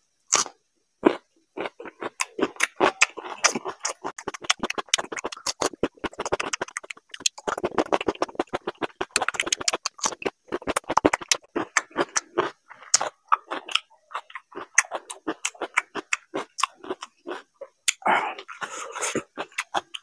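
Close-miked chewing of raw cucumber slices: crisp crunching, wet mouth clicks and lip smacks in an irregular stream, thickest in the middle.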